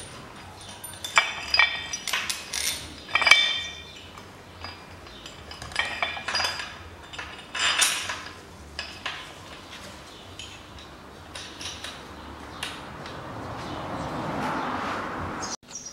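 Steel tools and bolts clinking with sharp, ringing metallic strikes as bolts are run in and tightened on a steel engine-stand bracket on the engine block. The clinks come in clusters in the first few seconds and again around six to eight seconds in, with lighter ticks between.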